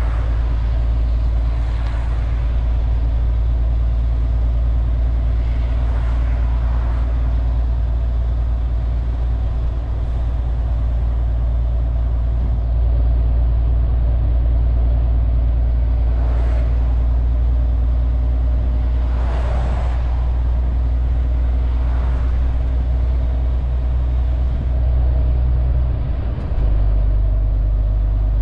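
MAN TGX 470 truck's straight-six diesel droning steadily while driving, heard inside the cab, with road noise. Several passing vehicles swish by, and the engine note dips and changes briefly near the end.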